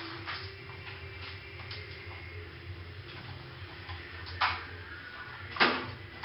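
A few faint ticks and two sharp clicks, about four and a half and five and a half seconds in, over a steady low hum.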